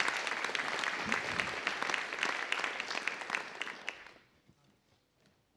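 Audience applauding, a dense crackle of many hands clapping that dies away about four seconds in.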